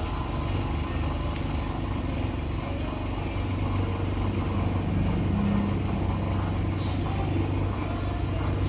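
Steady low rumble of road traffic with motor vehicle engines running, and a couple of faint clicks in the first few seconds.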